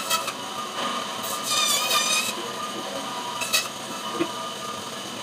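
Electric band saw running steadily while its blade cuts kingfish into steaks, with a warbling whine for about a second as the blade goes through the fish, and a few sharp clicks.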